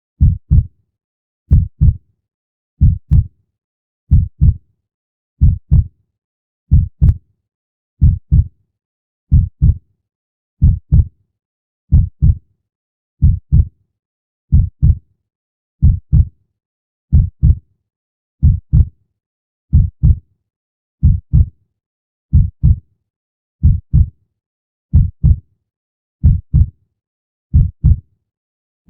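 Heartbeat sound effect: a slow, steady heartbeat, each beat a pair of low thuds in quick succession (lub-dub), about 45 beats a minute with silence between.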